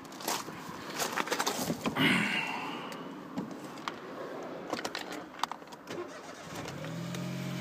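Clicks and handling noise, with a thud about two seconds in. Near the end the Smart Roadster's 698 cc three-cylinder turbo petrol engine starts and settles into a steady idle.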